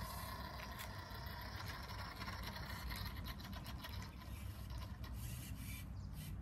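Nikko Firehawk RC buggy driving over paving stones: its small electric motor and plastic gears whirring, with the tyres scraping on the stone. The sound grows quieter in the second half as the buggy moves away.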